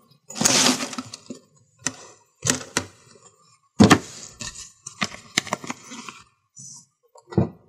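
Keys jangling and clicking in short, irregular clatters with pauses between them, the sharpest clack about four seconds in.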